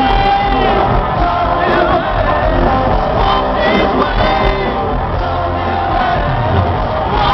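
Loud live concert music from the arena sound system, with a crowd shouting and whooping over it.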